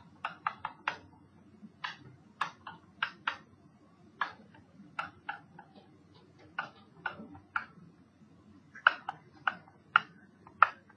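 A pen tip tapping and clicking against a hard writing screen as numbers are handwritten. The clicks are sharp and come at irregular intervals, in quick runs with short pauses between them.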